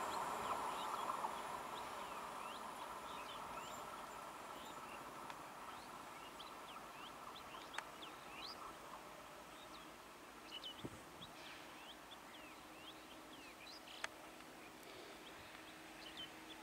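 Small birds chirping over and over against a quiet rural background. The rumble of a receding electric local train fades out over the first couple of seconds. A couple of sharp clicks and a faint steady hum come in later.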